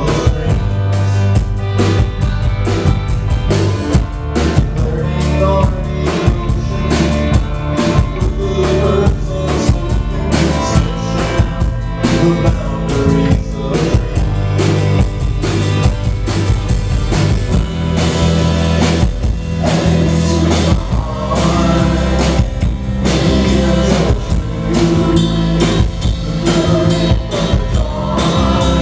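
Live band playing: electric guitars over a drum kit keeping a steady beat, with a low bass line.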